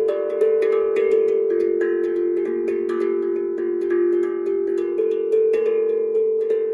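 Steel tongue drum played with the fingertips in a free improvisation: quick struck notes, a few each second, each ringing on and overlapping the next.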